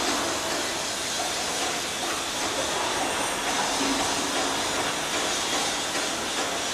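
Steady rushing hiss with no distinct tones or rhythm.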